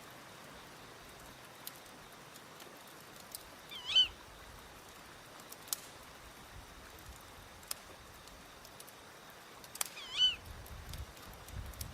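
Layered nature soundscape: a steady hiss of stream and wind with scattered crackles from a wood fire, while an owl gives a high, wavering call twice, about four seconds in and again near ten seconds.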